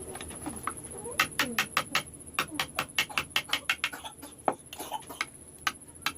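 Rapid, even taps of a mallet on a wood-carving chisel, about five a second, in runs with a short pause in the middle.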